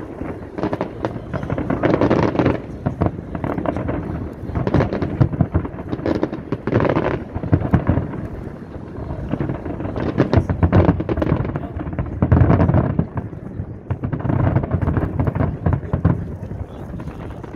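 Aerial fireworks shells bursting in a dense barrage: overlapping booms and crackles with louder swells every couple of seconds.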